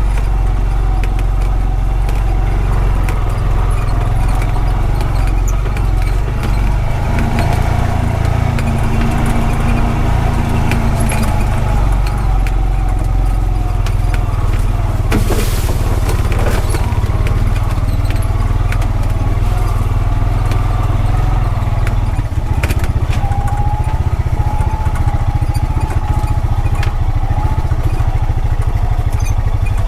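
Honda Pioneer 520 side-by-side's single-cylinder engine running steadily as it drives along a rough trail, with scattered knocks and rattles. The engine's note changes about two-thirds of the way in.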